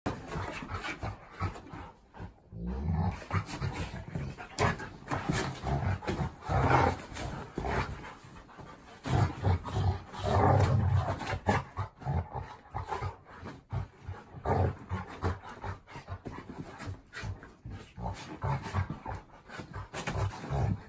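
A golden retriever and a yellow Labrador wrestling: low growls and grumbles come in irregular bouts, loudest around the middle, with scuffling on the dog beds.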